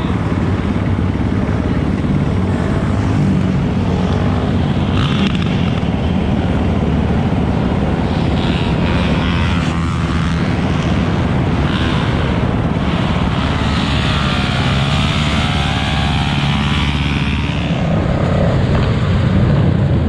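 Four-wheeler (ATV) and motorbike engines running, loud and continuous.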